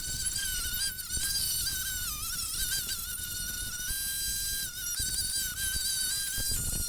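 Angle grinder with a wire wheel running, a steady high whine whose pitch sags briefly a few times as the wheel is pressed into the steel frame.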